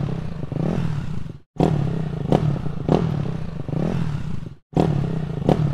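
Light dirt bike's engine running with quick throttle blips, the exhaust rising and falling in pitch. The sound cuts out briefly twice, about a second and a half in and near the end.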